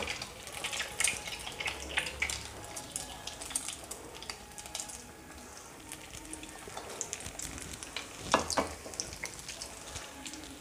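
Egg-dipped bread parcels deep-frying in hot oil in a kadai: a steady sizzle full of small crackling pops, with one louder burst of crackling about eight seconds in.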